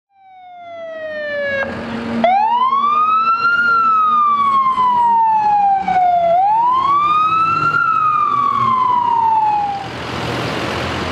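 Emergency vehicle siren wailing: one tone rising and falling slowly in long sweeps, about two full rise-and-fall cycles after a falling start, then it stops near the end, leaving steady street noise.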